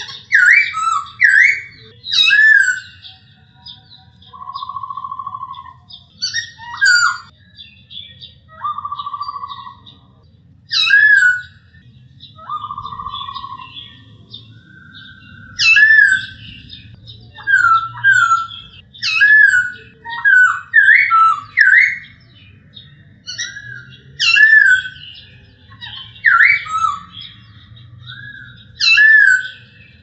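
Male black-throated laughingthrush singing: loud, clear whistled phrases of short, sharply sweeping notes, broken three times by a longer, lower buzzy note of about a second.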